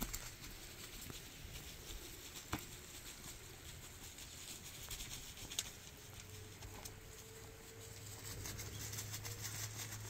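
Stone roof roller dragged over a damp earthen roof: faint gritty crunching and scattered small clicks as it rolls. A low steady hum comes in about six seconds in.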